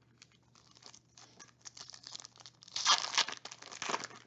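Foil wrapper of a 2021 Bowman 1st Edition baseball card pack crinkling and being torn open by hand. The crackling grows louder, peaking about three seconds in and again near the end.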